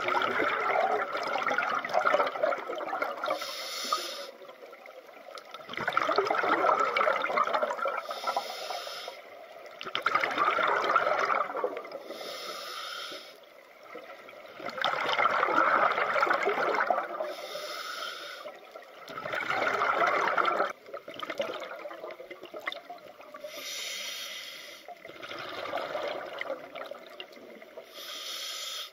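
Scuba diver breathing through a regulator underwater: a short hiss with each inhale, then a longer, louder rush of exhaled bubbles. About six breaths come one every four to five seconds.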